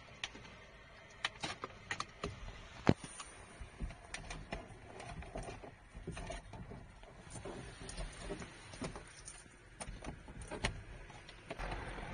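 Irregular clicks and taps of a dash cam power cable being pushed by hand into the gap between a car's headliner trim and the windscreen.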